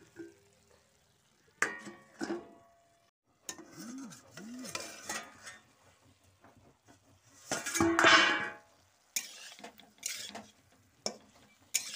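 Metal cookware clattering: clinks and scrapes of a steel lid and spatula against a kadhai, with brief ringing, the loudest clatter about eight seconds in.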